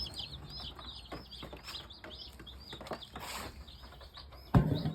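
A brood of day-old Cornish Cross broiler chicks peeping: many short, high chirps, each falling in pitch, overlapping in a busy run. A single loud thump comes near the end.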